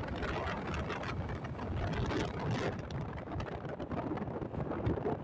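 Wind buffeting the microphone on a moving Hero motorcycle, over the steady running of its engine and tyre noise on the road.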